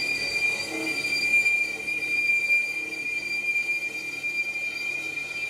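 Lathe cutting tool squealing against the inner braking surface of a truck brake drum as the drum is turned to resurface it: a steady, high-pitched metallic squeal.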